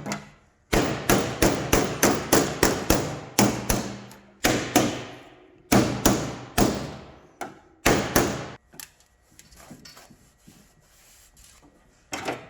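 Slide hammer on a rod, pulling a glued tab to draw a dent out of an aluminum panel: the first pull of a glue pull repair. It strikes sharply over and over, about three times a second at first, then in a few shorter bursts, and stops about two-thirds of the way through.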